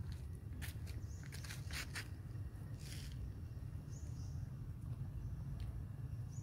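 Outdoor ambience: a steady low rumble with scattered sharp clicks in the first half and a few short high chirps.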